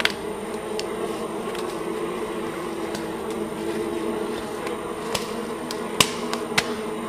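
Mosquitoes buzzing in a steady, droning whine, with a few sharp clicks scattered through, the loudest about six seconds in.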